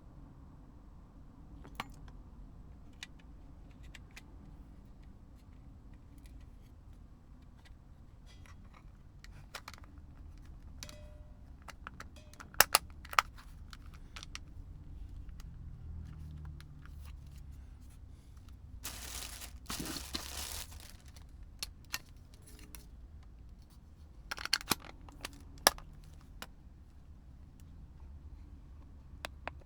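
Hand work on a small plastic remote control: scattered sharp clicks and light handling knocks, loudest in a few quick clicks about halfway through and again near the end. A rasping, scraping noise lasts about two seconds past the middle.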